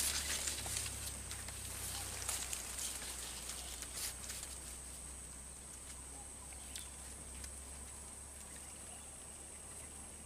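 Faint rustling and light clicks of handling fishing tackle among tall grass during the first few seconds of a cast, then quiet outdoor ambience with a steady high-pitched whine and a few soft ticks.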